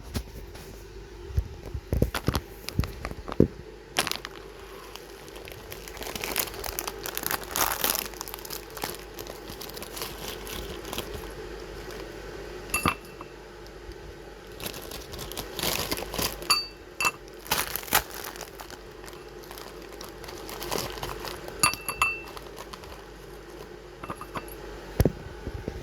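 Food packaging crinkling and utensils clinking on dishware: scattered taps and clicks, a few of them ringing briefly, over a faint steady hum.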